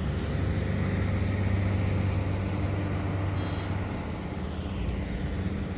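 A tractor's diesel engine running steadily with a low, even drone, easing a little about four seconds in.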